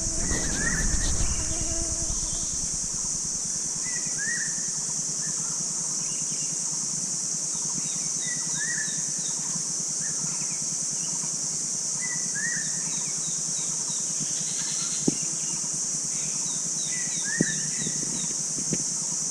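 A steady high-pitched insect drone, with a bird repeating a short downward-slurred call about every four seconds and faint quick high ticks in between. A low rumble in the first second or so, and two sharp clicks near the end.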